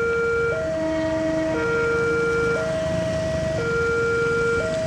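Railway level-crossing warning siren sounding its two-tone alarm, switching between a lower and a higher tone about once a second, warning that a train is approaching the closed crossing. A low rumble runs beneath it.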